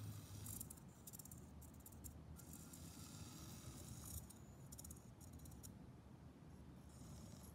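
Near silence, broken by faint high-pitched chattering in two spells, one starting about half a second in and another about four seconds in, from the tiny electric drive of a 1:87 scale RC truck as it moves.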